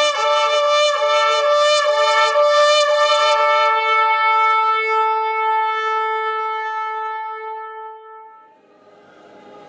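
A shofar is blown: a quick series of short broken blasts, then one long held note that fades away near the end. A faint wash of background sound comes in after it.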